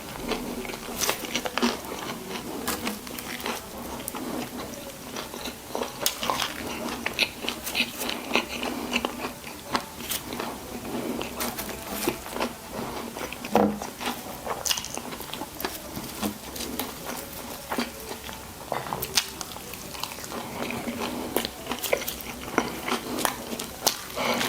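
Close-miked mouth sounds of someone eating a burger and fries: biting and wet chewing, with frequent short crunches and smacks.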